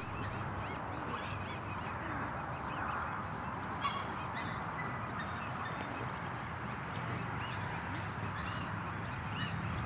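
Birds calling over and over, short repeated calls, over a steady low hum.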